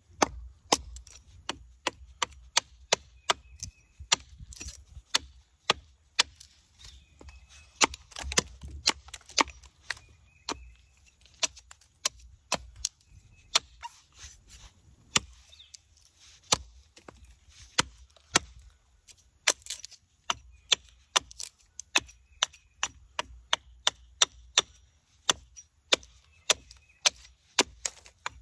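A walnut spoon blank being chopped by hand, with sharp wooden strikes coming about twice a second, unevenly spaced, and a low thud under each.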